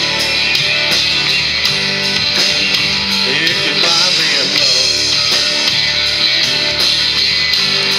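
Live rock band playing an instrumental passage: electric guitars, acoustic guitar and drums with a steady beat, no vocals.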